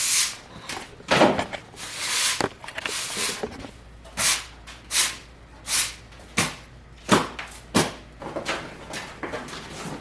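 A series of about a dozen separate clunks and knocks, spaced roughly half a second to a second apart, from heavy engine-hoist parts and packaging being handled and set down.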